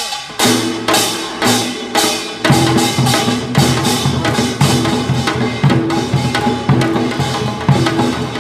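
Korean traditional percussion ensemble playing a fast, driving rhythm: janggu hourglass drum and buk barrel drums beaten, with bright metallic strikes on top. The beat comes in strongly about half a second in and thickens about two and a half seconds in.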